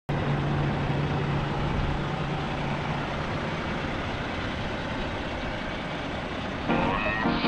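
International LoneStar semi truck's diesel engine idling, a steady rumble with a low hum. Music starts near the end.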